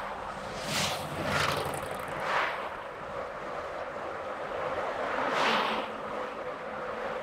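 A car driving on a road: a steady rush of tyre and wind noise with a faint low engine drone, and four brief whooshes of passing traffic, the last about five and a half seconds in.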